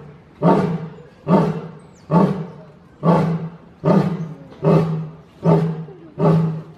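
A lion roaring in a rapid series of short, deep grunting roars, about one a second, evenly spaced and of much the same strength.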